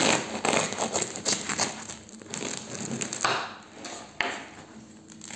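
Serrated bread knife sawing through the hard crust of a sourdough loaf, the crust crackling and crunching with each stroke. The strokes come thick and fast for the first two seconds, then slow, with a couple of sharp clicks near the end.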